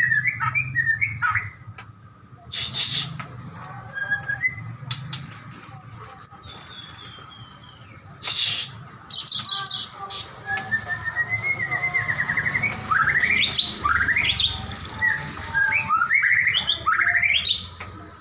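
A songbird singing: a varied run of chirps, a fast trill and sharp rising whistled notes, broken by a few loud harsh calls.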